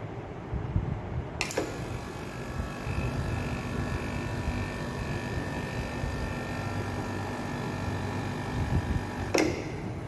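Window air-conditioner compressor, started through a potential relay and start capacitor, switched on with a click about a second and a half in. It runs with a steady hum and whine, then is switched off with another click near the end.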